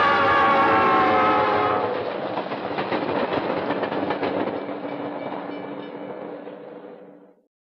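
Train horn sounding a held chord that stops about two seconds in, then a passing train's cars rumbling by with wheel clicks, fading out to nothing near the end.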